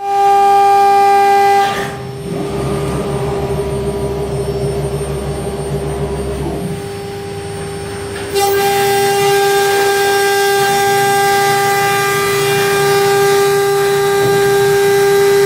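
CNC router spindle running with a steady high whine. It drops back about two seconds in, with a low rumble underneath, and comes back loud about eight seconds in.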